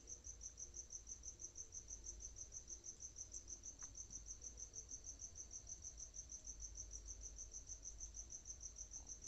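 Faint insect chirping, a high, evenly pulsed trill of about seven pulses a second, going on steadily.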